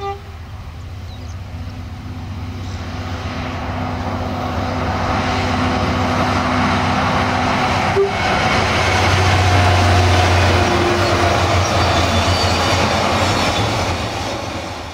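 Diesel-electric locomotive hauling a container freight train, its engine drone and the train's rumble growing steadily louder as it approaches, loudest as the locomotive passes close by, then the container wagons rolling past.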